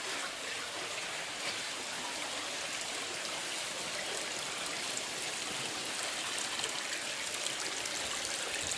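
Backyard pond waterfall running: a steady splash and trickle of water falling over rocks.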